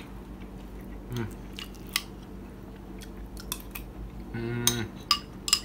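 A person eating lopis, a chewy glutinous rice cake, with a metal spoon from a ceramic bowl: mouth and chewing sounds with scattered sharp clicks of the spoon. There is a short hum about four seconds in.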